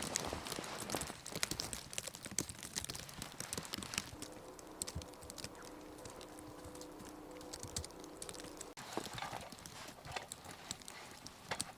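Rapid, irregular knocks and crunches that thin out midway, where a faint steady hum comes through, then pick up again near the end.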